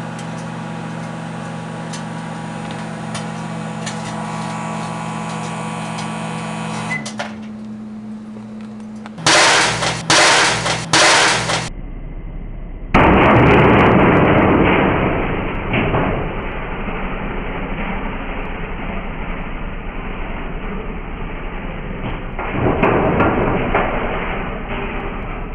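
Microwave oven running with a steady hum while the CRT tube inside crackles with sparks. Then come three loud bangs a little over a second apart, followed by a loud, noisy rush that fades and swells again near the end.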